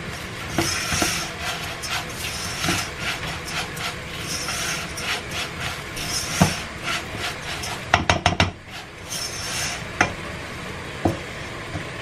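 Silicone spatula stirring raw rice grains being toasted in oil in a nonstick pan: a repeated dry scraping swish with each stroke, broken by a few sharp knocks and a quick run of clicks about eight seconds in.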